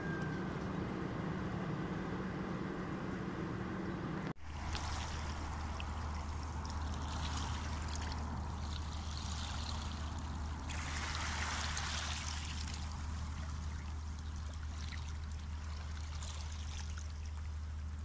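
Calm sea water lapping gently at the shore, over a steady low hum. The sound drops out for a moment about four seconds in and then carries on.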